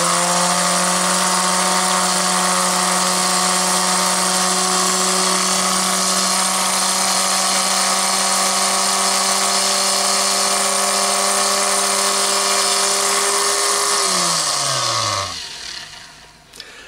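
Proxxon BSG 220 drill sharpener's small electric motor and grinding wheel running free at full speed with a steady hum and whine. About 14 seconds in it is switched off and spins down, its pitch falling until it stops.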